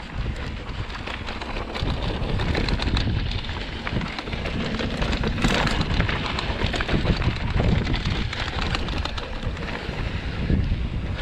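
Mountain bike rolling fast down a dry dirt trail: tyres crunching over dirt and loose gravel, many small rattling clicks from the bike, and wind buffeting the camera microphone, with a louder hiss about halfway through.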